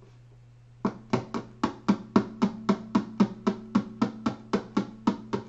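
Acoustic guitar strummed in a steady rhythm, about four strums a second, starting about a second in.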